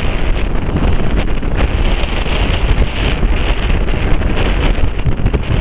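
Strong wind buffeting the microphone at the bow of a moving boat, over the rush of choppy sea, which swells and fades every second or so.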